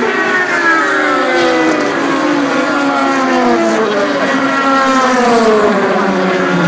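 Le Mans prototype race cars, an Audi R18 among them, passing one after another at racing speed; their engine notes overlap and fall in pitch as each car goes by.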